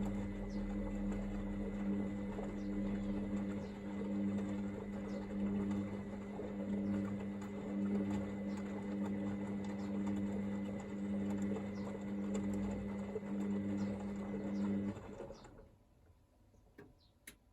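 Hoover VisionDynamic washing machine running its rinse: the drum motor hums steadily as the drum turns, then stops about 15 seconds in, followed by a single click near the end.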